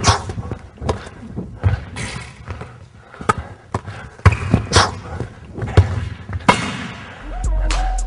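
Basketball dribbled hard on a hardwood gym floor, an uneven run of sharp bounces as the ball handler works crossover moves. Music with a heavy bass line comes in near the end.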